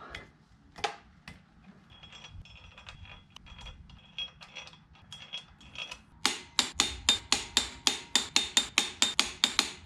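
Ratchet wrench clicking on the flywheel-to-crankshaft bolts: sharp metallic clicks, faint and sparse at first, then a loud, evenly spaced run of about five a second from about six seconds in.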